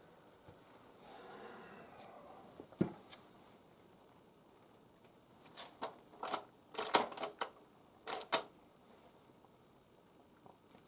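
Tippmann Boss hand-lever leather sewing machine working through stitches: a single click, then from about halfway in several quick clusters of sharp mechanical clacks as the lever is stroked. The machine has been binding up and grabbing the thread loop a second time.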